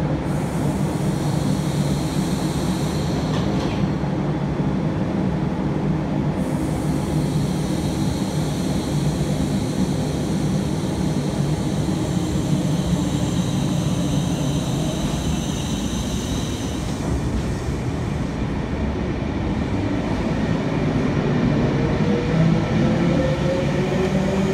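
NSW TrainLink V-set double-deck electric intercity train at a platform, with a steady low hum from its equipment. Near the end it moves off, and its motors give a whine that rises in pitch as it picks up speed.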